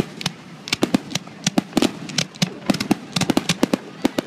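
Aerial fireworks bursting overhead: a rapid, irregular series of sharp cracks and pops that comes thicker toward the end.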